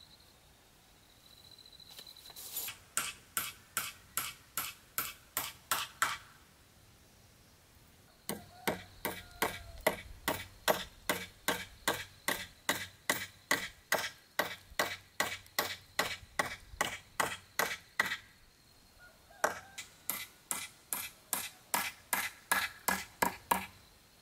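A hammer driving nails into a wooden crossbeam: three runs of sharp, steady blows, about three a second, with short pauses between the runs.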